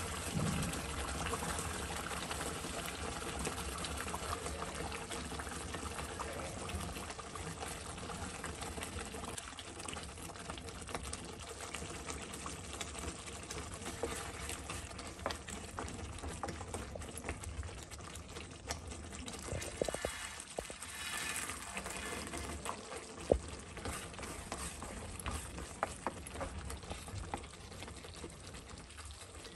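A wooden spatula stirring and scraping thick curry gravy in a nonstick kadai, with small knocks against the pan, while the gravy simmers and bubbles. One sharper knock comes about three-quarters of the way in.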